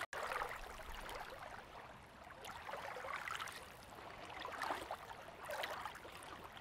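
Faint lapping water, a soft rushing that swells and fades unevenly.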